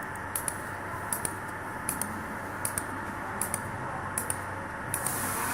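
Laser soldering machine running its automatic cycle: a steady whir with sharp ticks in close pairs, repeating evenly about every three-quarters of a second.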